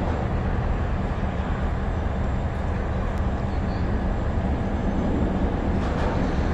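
Diesel locomotive's engine idling with a steady low rumble.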